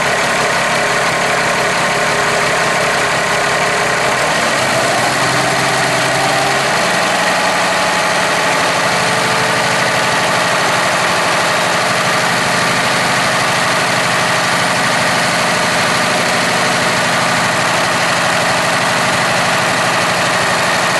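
Cummins ISX diesel truck engine running at idle, then speeding up about five to seven seconds in and holding a steady higher speed. It is running for a crankcase blow-by test on an engine whose owner suspects worn pistons and rings.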